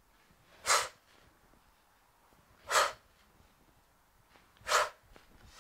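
A woman's sharp exhales through the mouth, three of them about two seconds apart, one for each knee tuck of a plank on a stability ball.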